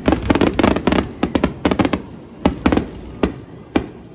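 Fireworks bursting: a dense run of rapid crackling bangs for about two seconds, then a few single bangs spaced further apart.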